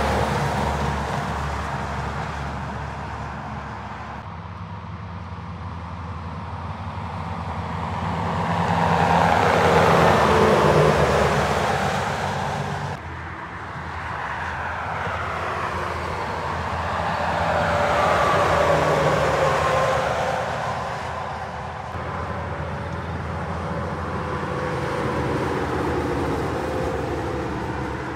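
Semi-trailer trucks passing one after another on a highway: tyre and engine noise swells and fades with each pass, with a falling pitch as each goes by. The sound breaks off abruptly twice, about 13 and 22 seconds in.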